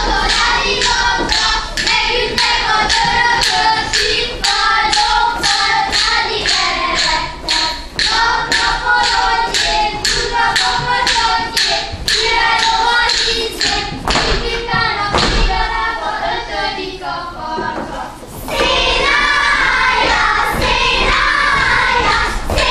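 Children's voices singing a Hungarian folk song together, over a steady beat of sharp taps from the dancers at about two a second. The taps stop about two-thirds of the way through, the singing drops away briefly, then resumes without them.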